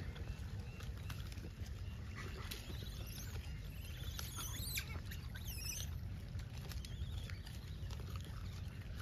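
Steady low rumble, like wind on the microphone, with a few short high chirping calls rising and falling between about two and six seconds in.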